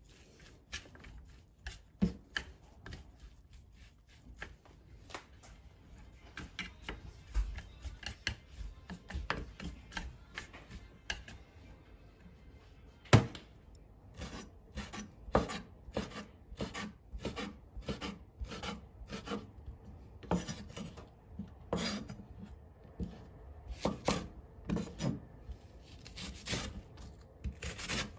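Wooden chopsticks clicking and scraping in a stainless steel tray as shredded potato is tossed with starch and seasoning. About halfway through this gives way to a kitchen knife cutting through bacon and then green onion, knocking on a wooden cutting board in a run of steady strokes.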